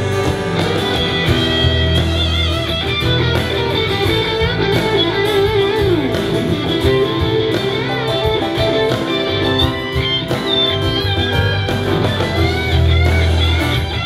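Live band playing an instrumental break: a Telecaster-style electric guitar takes the lead with bending notes over keyboard and drums.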